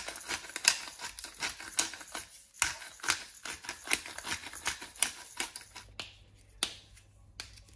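Pepper grinder being twisted to grind black pepper: a rapid run of dry clicks for about five seconds, then only a few scattered clicks near the end.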